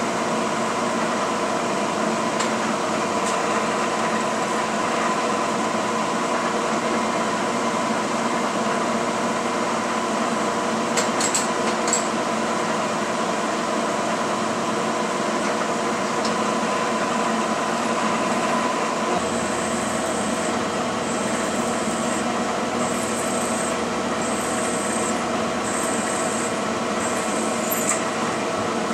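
Milling machine spindle running steadily, with a few clicks near the middle. From about two-thirds of the way in, a drill cuts into an aluminium plate in short repeated pecks, each bringing a high-pitched cutting sound, about one every second and a half.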